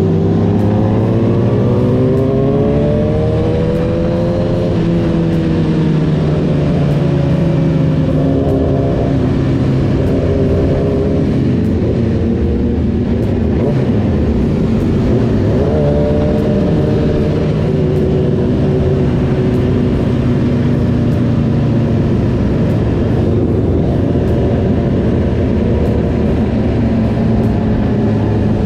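Motorcycle engine running on the move, its pitch rising and falling as the throttle opens and eases off, over a steady low rumble.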